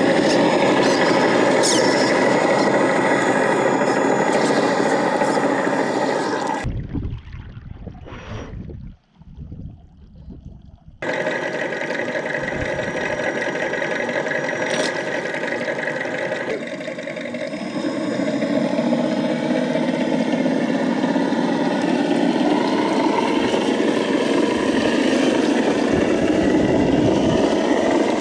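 Whine of radio-control electric motors: the Traxxas Spartan speed boat running on the water and the Traxxas TRX4 crawler driving at the shore. About seven seconds in, the sound drops to a low, muffled rumble for a few seconds, then returns.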